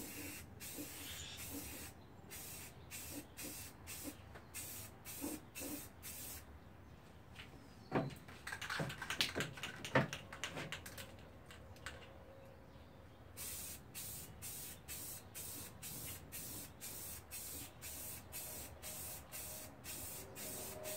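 Aerosol spray can of primer hissing in quick short spurts, a few a second. Midway the spraying stops for several seconds, with a short run of sharp rattling clicks, the loudest sounds here, before the spurts start again.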